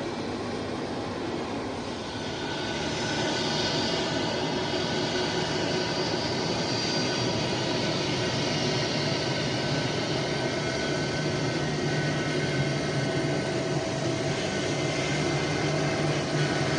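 Jet aircraft engines running, a steady rumble with a whine over it. The sound grows louder about two to three seconds in, then holds steady.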